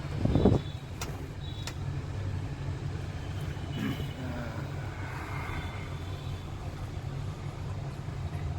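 A vehicle driving on the road: a steady low engine and road rumble, with a brief louder rumble in the first half-second.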